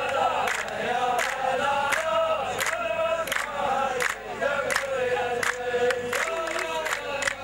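A row of men chanting a poetic refrain in unison, with steady rhythmic hand clapping.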